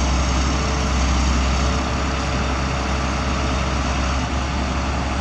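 John Deere 330LC excavator's diesel engine running steadily while the machine digs with its boom and bucket.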